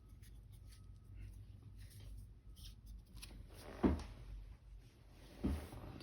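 Faint handling noises of small tools and parts on a repair bench while a camera's switch contacts are cleaned: light scattered ticks and rubbing, with two soft knocks about four and five and a half seconds in.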